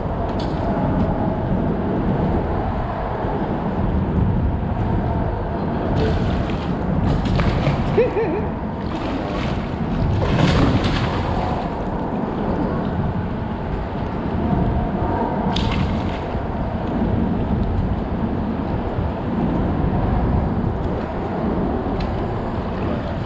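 Water sloshing and gurgling around a small fishing boat over a steady low rumble, with a few short, sharp splashes.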